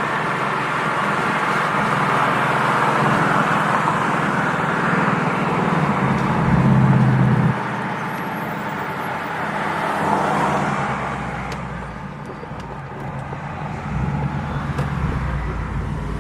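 Ford Mustang GT's Coyote V8 engine pulling under way over steady road noise. The engine note swells about six seconds in, then drops off suddenly about halfway through, and rises again more gently near the end.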